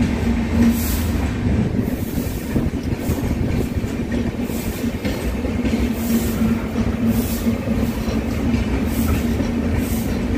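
Passenger coaches of the Wainganga Superfast Express rolling slowly past, running through the station without stopping: a steady rumble of wheels on rail with a constant low hum, and brief high hisses from the wheels every second or two.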